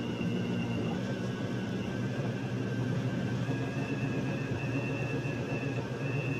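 Countertop blender motor running steadily, chopping corn stalks and leaves in water.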